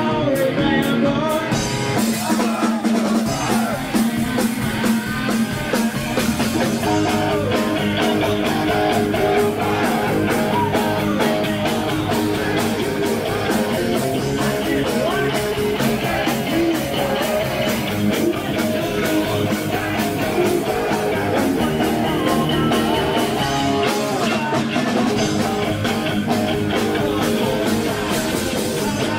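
Live rock band playing, with electric guitar and drum kit.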